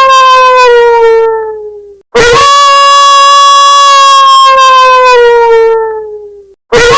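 A wolf howling sound effect played very loud and distorted, over and over. The first howl slides down in pitch and fades out. A new howl starts about two seconds in, holds, then slides down and fades. Another begins just before the end.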